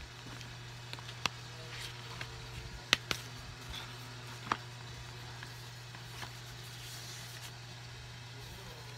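A few sharp clicks and faint taps as tempered-glass screen protectors and their plastic pack are handled, over a steady low hum.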